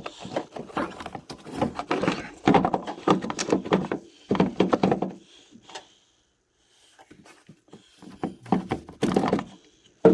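Irregular knocks and thunks of parts being handled and fitted by hand into a truck during reassembly, busy for the first five seconds or so, then a pause and a few more thuds near the end.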